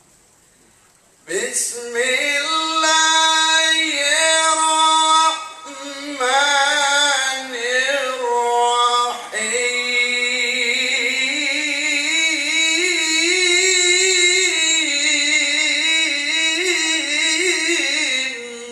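A man reciting the Qur'an in the melodic tilawah style into a microphone. He sings long, ornamented held phrases in a strong voice, starting about a second in. There are short breaks for breath around five and a half and nine seconds, then one long phrase that ends just before the close.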